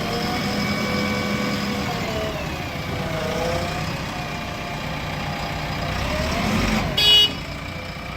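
JCB 3DX backhoe loader's diesel engine running under load while stuck in mud, its pitch rising and falling as it is revved up and eased off several times. About seven seconds in there is a short, loud, high-pitched beep.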